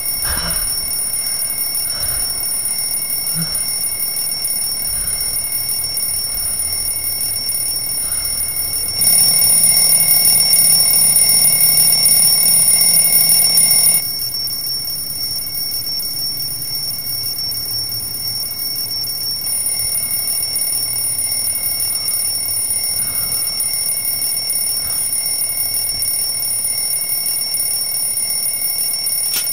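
Alarm clock ringing steadily and without a break, a high, bell-like ring; it is louder for about five seconds in the middle.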